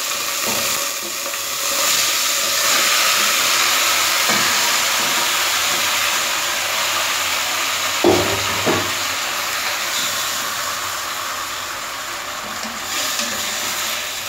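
Raw chicken pieces frying in hot oil and garlic in a stainless steel pot: a steady sizzle throughout, with two short knocks just past halfway as the pieces are stirred.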